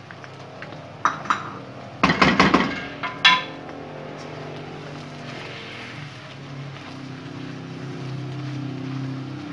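Oil sizzling in a wok, with a spatula knocking and clattering against the pan several times, densest about two seconds in. A steady low hum comes in partway through.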